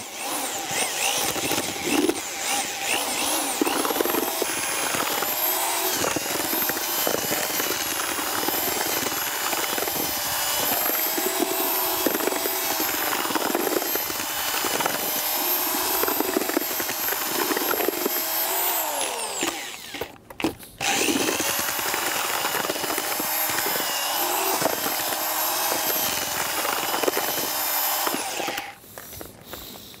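Corded drill spinning a paddle mixer through gritty castable refractory mix in a plastic bucket, its whine wavering in pitch. It runs up to speed over the first few seconds, winds down and stops briefly about two-thirds of the way through, then runs again for several seconds and stops near the end.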